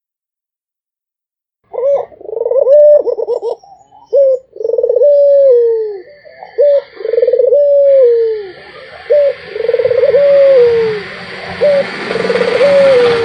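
Puter (Barbary dove) cooing: a phrase of a short note followed by a long falling coo, repeated about six times, beginning about two seconds in after silence. A hiss of background noise grows under the later coos.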